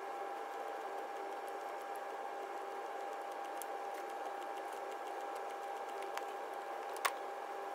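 Steady background hum with a faint high tone running through it, and one sharp click about seven seconds in from the ratchet and socket working loose the oil filter housing cap.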